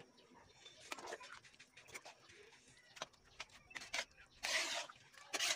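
Metal ladle stirring thick tomato spaghetti sauce in a large aluminium wok, with scattered clicks against the pan. It gives a louder scrape about four and a half seconds in and another just before the end.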